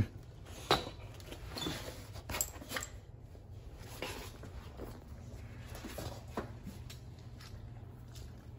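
Dog playing with a plush toy: scattered light knocks, taps and rustles as it mouths and shifts the toy, with one loud thump right at the start.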